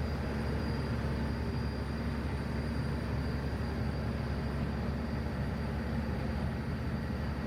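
Ferry boat's engine running steadily on the lagoon, a low drone with a faint high whine above it.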